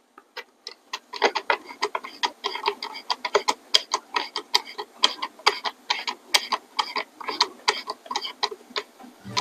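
Screwdriver driving a trigger-guard screw into an air rifle's stock, with a run of light, irregular clicks several times a second.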